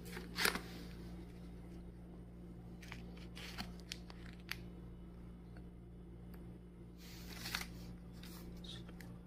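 Clear plastic food wrapper crinkling as it is handled, in a few short rustles: a sharp one about half a second in, several crackles between three and four and a half seconds, and a longer rustle about seven seconds in, over a steady low hum.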